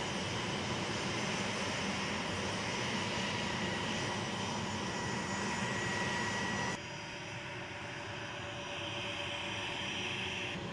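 Fairchild Republic A-10 Thunderbolt II's twin General Electric TF34 turbofan engines running steadily on the ground, a jet whine carrying a high thin tone. About two-thirds of the way through, the sound switches abruptly to a slightly quieter, lower-toned engine sound as the aircraft taxis past.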